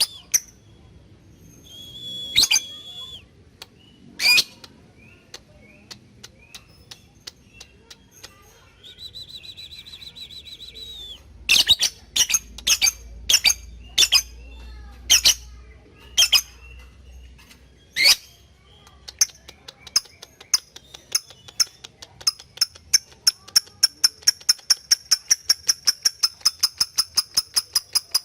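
Lovebird calling: a few sharp chirps and short held high notes, then a quickening run of rapid high ticks, speeding up to several a second. This is the 'ngetik' typing call, used to challenge rival lovebirds into long chattering.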